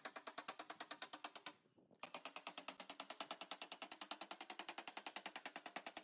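Handheld power tool working the car's metal body panel in a rapid, even pulsing of about twelve strokes a second, stopping briefly about a second and a half in and then starting again.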